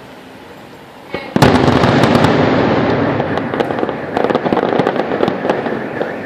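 Aerial fireworks display: after a short lull, a loud shell bursts about a second and a half in, followed by a steady barrage of bangs and crackling pops from many shells.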